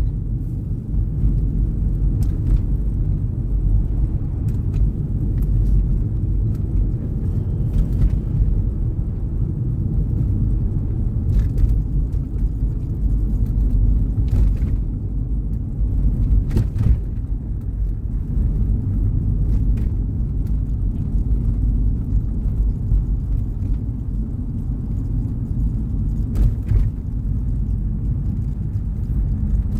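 Steady low rumble of a car being driven, with a few faint knocks here and there.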